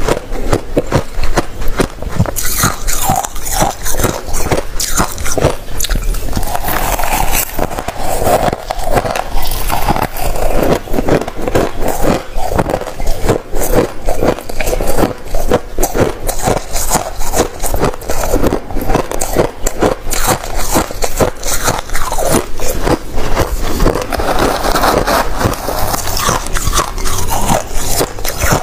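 Crushed freezer ice being bitten and chewed close to the microphone: a dense, unbroken run of crisp crunches.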